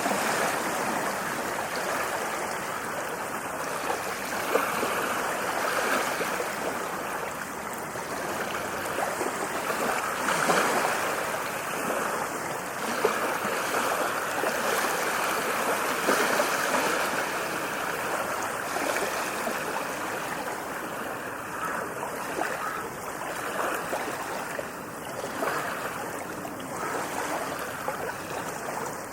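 Ocean waves washing onto a beach, the surf swelling and fading every few seconds.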